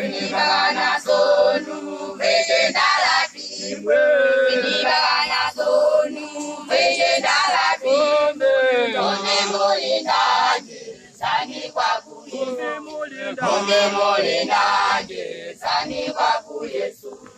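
A choir of voices singing together in unison, with phrases broken by short pauses.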